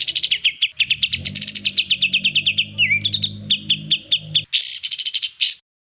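A songbird singing fast, rapid-fire trills of sharp, repeated high notes, about ten a second, with a brief warbling glide partway through. This is the 'tembakan' (shooting) style of song used to tutor caged songbirds. A low hum runs underneath for a few seconds, and the song breaks off near the end.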